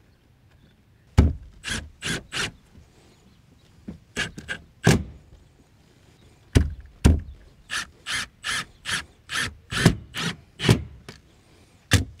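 A string of short scuffing knocks with a dull low thump in some, on the roof where the caulked conduit flashing is being pressed down. Scattered at first, then coming about two or three a second from around the middle on.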